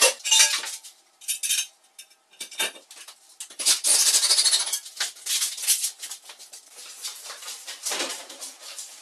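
Metal clattering and scraping in several bursts of about a second each, as square-tube metal wall brackets are handled and hung on the wall.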